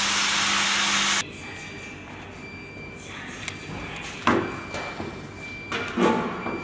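A machine running with a loud steady rushing hiss and a low hum, cutting off suddenly about a second in; then quiet workshop room noise with a faint high steady tone and two sharp knocks.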